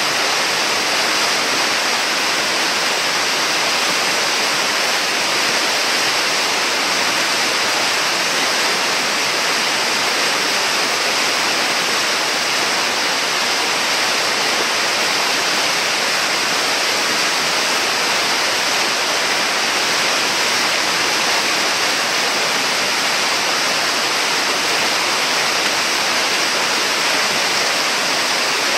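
Whitewater of a river hole and rapids rushing steadily: a loud, even hiss of churning water that does not let up.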